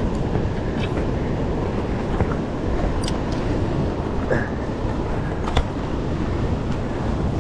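Wind rumbling on the microphone over surf washing against the rock shelf, with a few faint clicks of handling.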